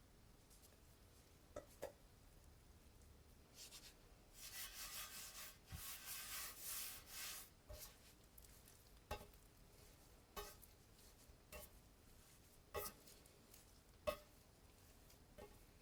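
Quiet kitchen handling sounds: a few seconds of rubbing and scraping in a bowl about four seconds in, then scattered light taps and clicks of utensils.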